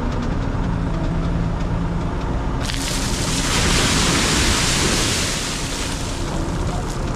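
Steyr 9094 tractor engine idling steadily while it drives the Trioliet feed mixer wagon's augers slowly, as the dry raw ingredients are loaded. About three seconds in, a loud rushing hiss rises over the engine for a few seconds, then fades.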